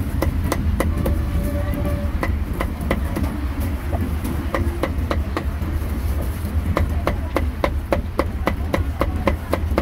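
Cleaver chopping cooked meat on a thick wooden chopping block: sharp, even strokes of about three a second, coming a little quicker in the second half.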